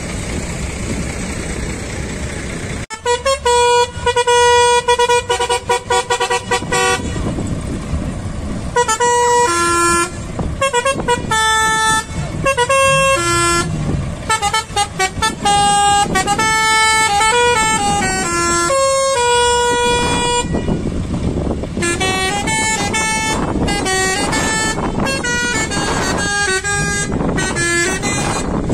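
Lorry's telolet horn, a multi-tone air horn playing a tune of short and held notes that step up and down in pitch, starting about three seconds in. It pauses briefly after about twenty seconds, then starts again with quicker notes.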